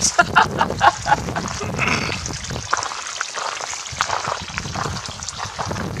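Water trickling from a garden hose onto the stones of a rock-lined garden bed.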